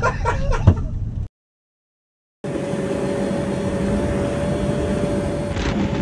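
Voices for about a second, then a cut to dead silence. After that, a vehicle engine runs at a steady pitch under a rush of wind noise.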